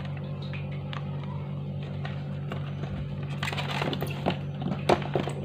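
Dolphin electric handheld massager's motor running with a steady low hum. From about three seconds in, crackling and rustling of the styrofoam packaging being handled.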